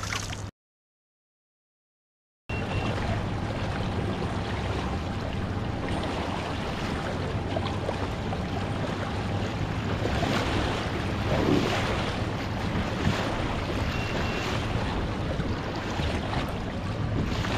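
A kayak under way: water rushing and splashing off the hull and stern wake, with wind buffeting the microphone and a steady low hum underneath. The sound drops out completely for about two seconds near the start.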